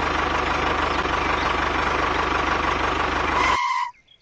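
Mini tractor's engine sound running steadily, an even low throb under a steady whine. It cuts off abruptly about three and a half seconds in, leaving near silence.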